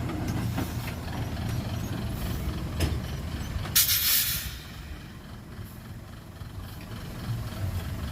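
Heavy diesel dump truck and machinery engines running with a steady low rumble. About four seconds in comes one short, loud hiss of released air, typical of a truck's air brakes.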